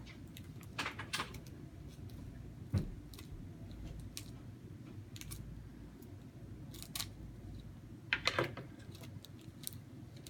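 Slime-kit pieces handled on a table: scattered light clicks and taps, one firmer knock nearly three seconds in, and a quick run of clicks around eight seconds.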